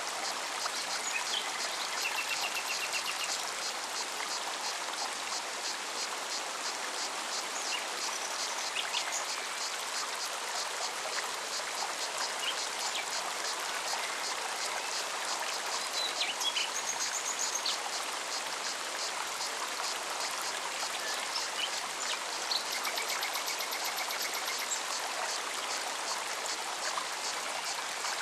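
Forest stream running steadily over rocks, with cicadas giving a rapid, even pulsing song and a few short bird chirps now and then.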